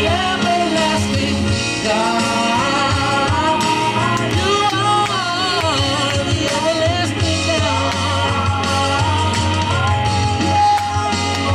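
Worship song: a band with a steady bass line under wavering sung melody lines.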